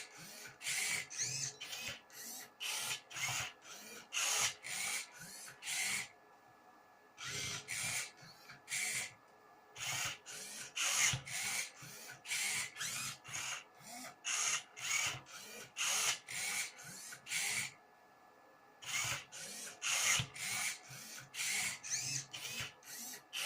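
Motors of a home-built Rubik's cube solving robot turning the cube's faces move after move: a run of short whirring turns, about two a second, broken by a few pauses of about a second.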